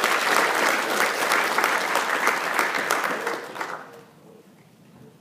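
Audience applauding, a dense patter of hand claps that dies away about four seconds in.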